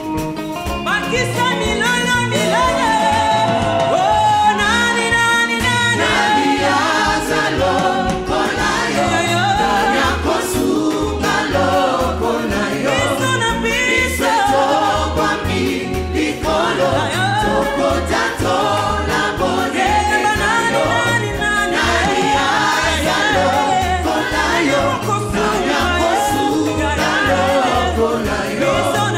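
Live gospel praise song: a lead singer on a microphone and a choir singing together over a band with a steady beat.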